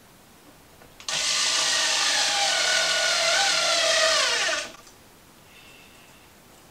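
Small cordless electric screwdriver driving one of the little screws that hold a flat-pack drawer runner in place. Its motor whines steadily for about three and a half seconds, starting about a second in, and its pitch drops just before it stops.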